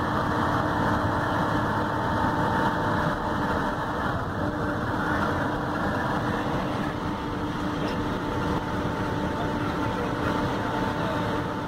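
Intercity bus cruising at highway speed, heard from inside the driver's cab: a steady drone of engine and road noise with a faint whine running through it.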